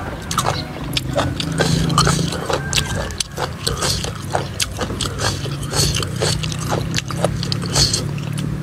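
Close-up wet chewing and lip-smacking of raw beef dipped in spicy sauce: a quick, irregular run of sharp mouth clicks over a low steady hum.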